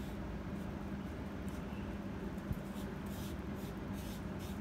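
Fingers rubbing coloured sand into wet fevicol (white glue) on a sheet of paper: a few soft, scratchy rubbing strokes in the second half, with one small tap, over a steady low hum.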